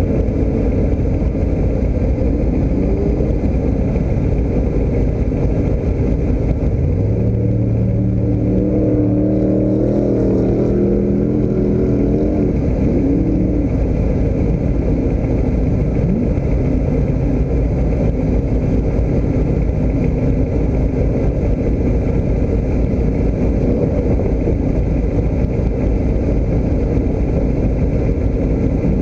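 A motor vehicle engine runs with a continuous low rumble. A steady engine note rises out of it about seven seconds in and fades again a few seconds later.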